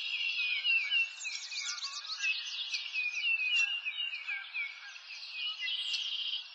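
Many birds chirping together in a dense, continuous chorus of quick, mostly falling chirps.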